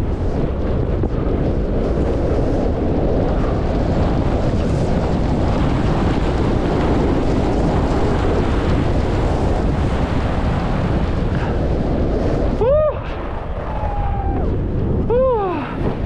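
Wind rushing over an action camera's microphone as a skier runs downhill, a loud, steady roar of air and snow. A little before the end it drops, and two short rising-then-falling squeaks sound a couple of seconds apart.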